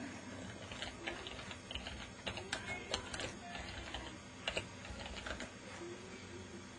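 Irregular keystrokes of typing on a computer keyboard, starting about a second in and stopping about a second before the end.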